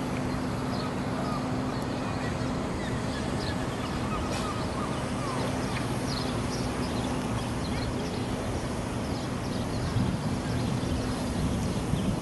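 Birds calling in short, repeated high calls over a steady low mechanical hum.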